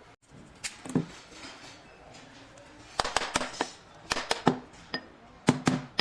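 Kitchen utensils and vessels clinking and knocking, several sharp clicks with a short ring coming in small clusters.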